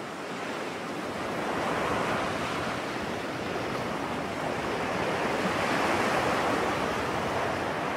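Ocean waves washing in: a steady rushing of surf that swells gently twice.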